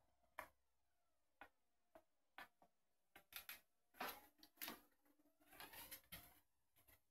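Faint clicks and soft rustling: a few single clicks in the first three seconds, then denser bursts of rustling from about three seconds in.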